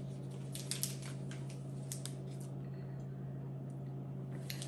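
Plastic snack packaging handled, giving scattered small clicks and crinkles over a steady low hum.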